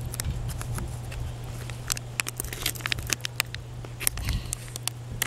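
Spoon scraping and rustling inside a foil pouch of Mountain House freeze-dried food: irregular clicks and crinkles, over a low steady hum.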